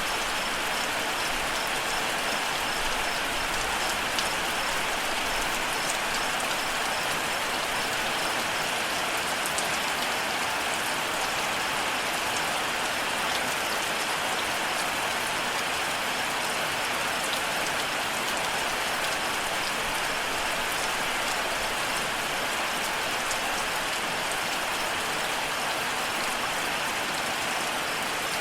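Steady, even rainfall pattering on surfaces. A faint, evenly pulsing cricket chirp sits above it in the first few seconds.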